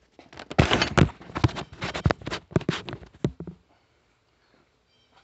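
Handling noise on a phone's microphone: a rapid, irregular run of knocks, scrapes and rubbing as the phone is gripped and moved. It stops abruptly about three and a half seconds in.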